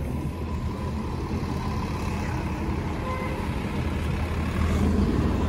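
City bus running past at close range amid street traffic, a steady low engine rumble with a faint steady whine, getting louder near the end.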